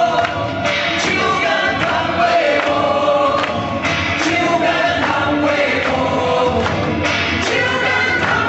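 Pop song performed live with several voices singing together over a full band backing.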